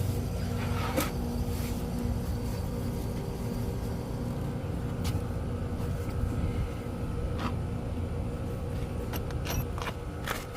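A steady low mechanical hum, like a running engine, with a few short light clicks and taps scattered through it.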